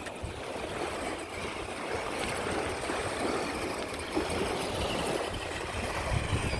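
Steady rush of flowing, gurgling water.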